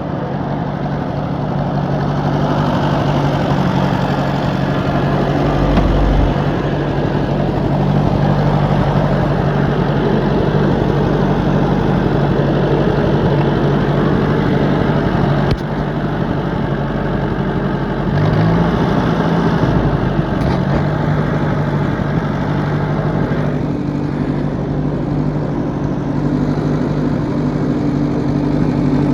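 Tractor engine running steadily under load while pulling a chained trailer, with a brief dip and rise in engine speed about two-thirds of the way through.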